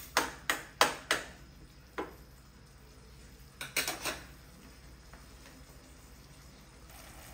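A utensil clinking against a cooking pan as the tuna pasta sauce is stirred: a quick run of sharp knocks in the first second, one more about two seconds in, and a short cluster near four seconds.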